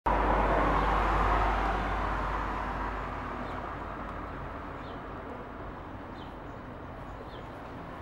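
A steady rushing background noise, loudest at the start and fading over the first few seconds, with a few faint bird chirps.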